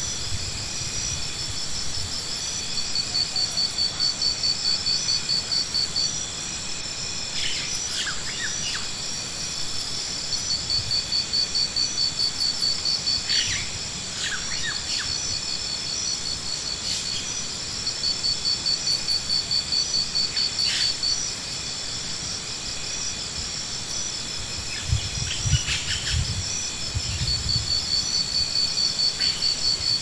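Summer insects shrilling: a steady high drone with loud bouts of fast, rhythmic pulsing that swell for a few seconds and stop, again and again. A few short chirps come and go, and a brief low rumble comes near the end.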